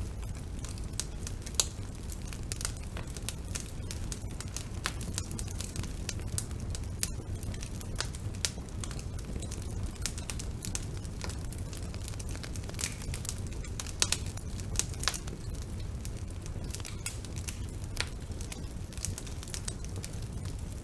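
Wood fire burning in a fireplace: irregular crackles and sharp pops over a steady low rumble, the loudest pops about a second and a half in and again around fourteen seconds in.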